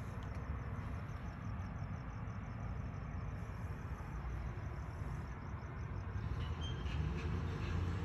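City street traffic with a steady low rumble, a vehicle growing louder near the end, and a faint, rapid high-pitched chirping pulsing throughout.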